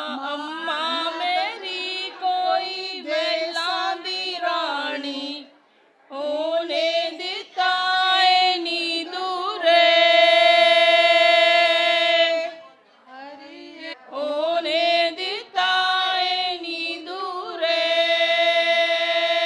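A woman singing a traditional Punjabi wedding folk song into a microphone, without instruments, in phrases with long held notes and short breaks between them.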